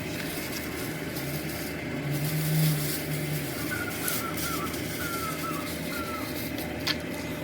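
Steady hum of a car driving, with the engine tone swelling briefly about two seconds in and a few faint high chirps midway.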